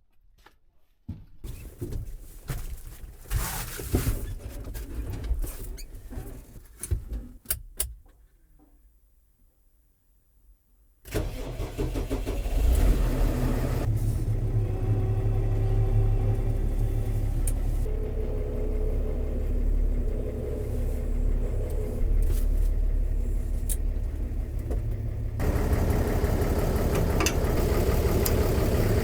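Footsteps and scattered knocks, then a brief near silence. About eleven seconds in, a New Holland TS135A tractor's diesel engine starts abruptly and runs steadily, growing louder and brighter near the end.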